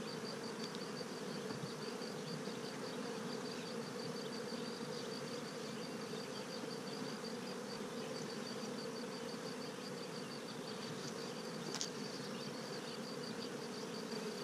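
Italian honey bees buzzing over an open hive: a steady, even hum. A single sharp click about twelve seconds in, as the hive tool pries a frame loose.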